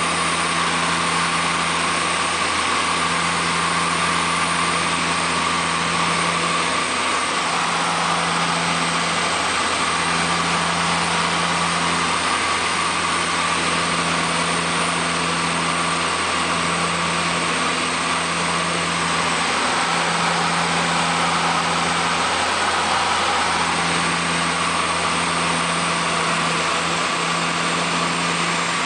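Twin PT6A turboprop engines and propellers of a DHC-6 Twin Otter, heard from inside the cockpit in flight on approach: a loud, steady drone over a rush of airflow noise. The low hum swells and dips every couple of seconds.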